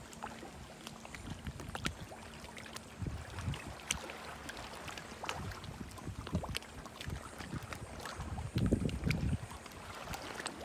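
Shallow seawater lapping and splashing in small irregular ticks and slaps, with a few low gusts of wind on the microphone about three seconds in and again near the end.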